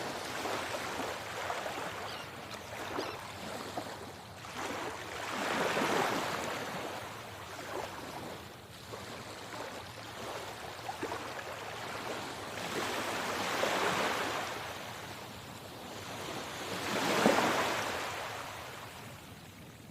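Sea waves washing in, with the surf swelling and falling away three times in slow surges.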